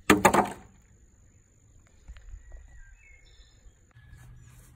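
A brief loud burst of noise right at the start, then quiet outdoor ambience with faint, scattered high bird chirps. A thin, steady high tone runs under it and stops about four seconds in.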